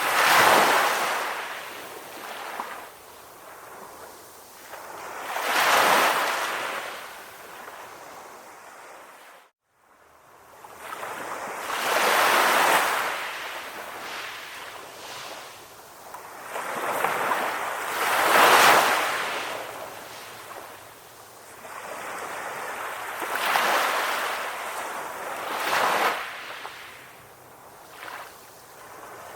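Sea waves breaking and washing up the shore, each surge swelling and fading every few seconds. About a third of the way in, the sound drops out for a moment.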